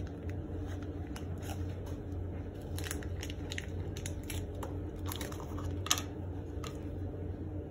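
Small air-rifle valve parts handled on a newspaper-covered workbench: scattered light clicks, with a sharper knock about six seconds in, over a steady low hum.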